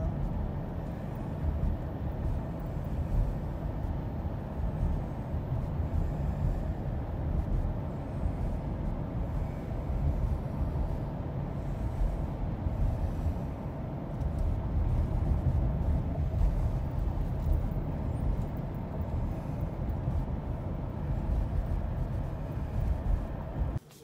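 Steady road and engine noise heard inside a moving car's cabin, a heavy low rumble that cuts off suddenly near the end.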